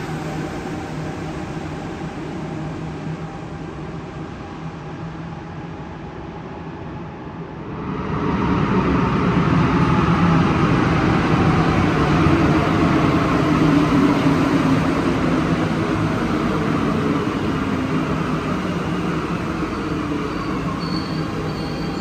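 Alstom rubber-tyred metro train of Santiago Metro Line 2 coming into the station. Steady station hum at first, then about eight seconds in the train's running noise and motor whine rise suddenly and stay loud, the whine gliding slowly in pitch.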